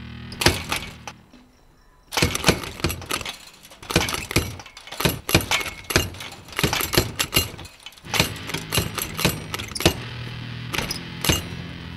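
Barred metal stairwell gate rattling and clanking in quick, irregular bursts as it is shaken by its bars. Under it, a low music drone drops out about a second in and comes back near the end.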